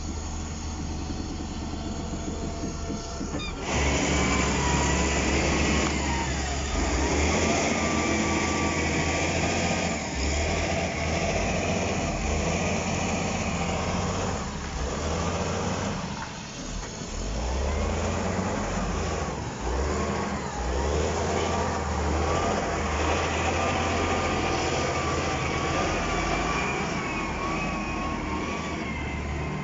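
Heavy diesel machinery, a Zoomlion ZE210E excavator and an XGMA wheel loader, running hard under load as they push a large uprooted tree, with a high wavering whine over the engine noise. It gets louder about three and a half seconds in.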